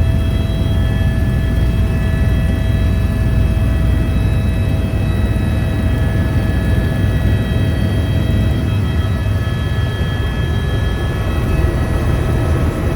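Helicopter's turbine engine and rotors running steadily, heard from inside the cabin: a deep, even rumble with several steady high whines over it.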